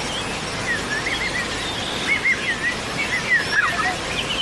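Wild birds singing: many short, quick warbling chirps, one after another, over a steady background hiss.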